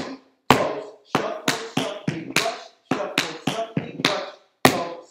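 Metal-tipped tap shoes striking a wooden floor in two quick runs of crisp taps, with a short gap between them: two left-foot five-count shuffles (shuffle, scuff, dig, brush).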